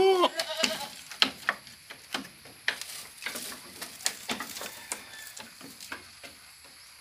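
A goat's bleat tails off at the very start. Then comes irregular crackling, rustling and clicking as goats pull at and chew dry leafy branches on a bamboo-slatted floor.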